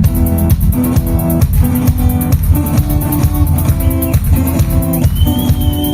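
Rock band playing live, with guitar, bass and a drum kit keeping a steady beat of about two strokes a second. A high held note enters in the second half.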